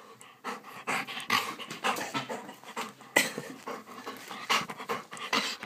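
Dog panting right up against the microphone, short noisy breaths coming irregularly two or three a second.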